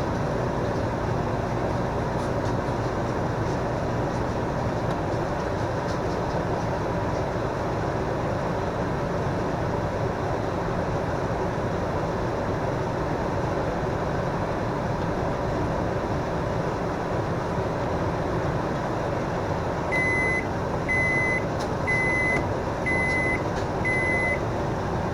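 Microwave oven running with a steady hum while it cooks, then five short high beeps about a second apart near the end: the end-of-cycle signal that the cooking time is up.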